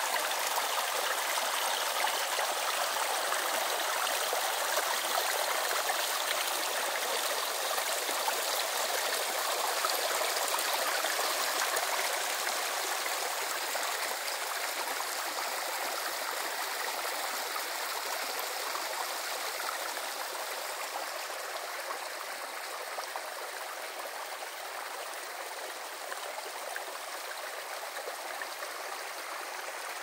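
Small forest brook babbling over stones and a little cascade: a steady rushing, splashing flow that grows a little softer in the second half.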